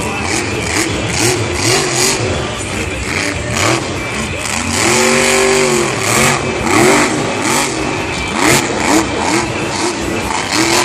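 Grave Digger monster truck's supercharged V8 revving hard in repeated bursts, its pitch swinging up and down, with one long rise and fall about halfway through.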